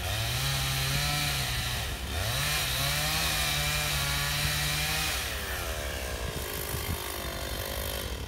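Two-stroke chainsaw cutting into a standing tree trunk at high revs, dipping briefly about two seconds in and revving up again, then slowing and winding down over the last three seconds.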